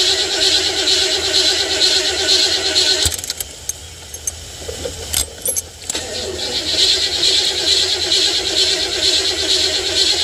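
A car's starter motor cranking the engine over without it catching, a sign the narrator puts down to a weakening battery. About three seconds in the cranking stops, a few clicks follow, and about six seconds in it starts cranking again.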